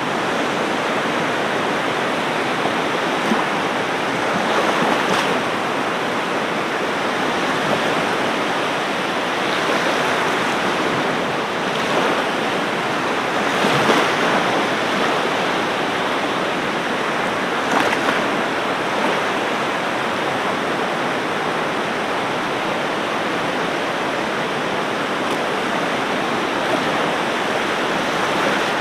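Ocean waves breaking on a beach: a steady rush of surf, with a few slightly louder surges, the strongest about halfway through.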